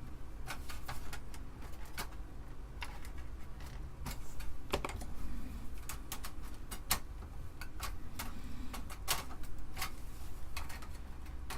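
Irregular sharp metallic clicks and small scrapes as the rusty RF shielding of an Amiga 500 is worked loose and its tabs are twisted free.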